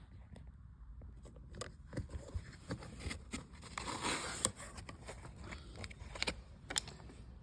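Tools and parts being handled during a repair: a string of clicks, knocks and scrapes, with a short stretch of hissing scrape about four seconds in.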